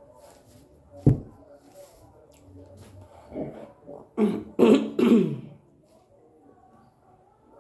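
A glass plate knocks once against the table about a second in. From about three seconds in, a woman coughs and clears her throat about four times in quick succession while eating.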